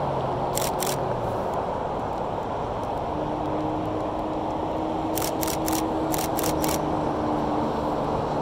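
DSLR shutter firing: two clicks under a second in, then two quick bursts of three about five and six seconds in, over a steady low rumble.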